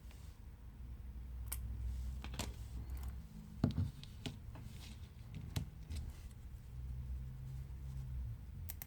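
Small tools and phone parts giving scattered light clicks and taps during a smartphone teardown, one louder knock about three and a half seconds in, over a low hum.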